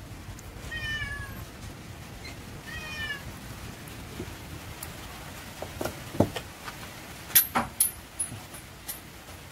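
Domestic cat meowing twice, short arching calls about one second and three seconds in. Several sharp clicks and clinks come later, the loudest of them about seven seconds in.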